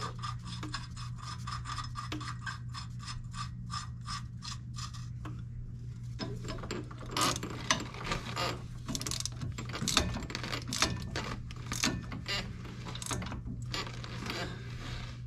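Hand socket ratchet clicking as new bolts are run in and tightened on a truck's steering linkage. It starts as a quick, even clicking, then from about six seconds in turns into slower, louder, uneven strokes as the bolt is snugged down.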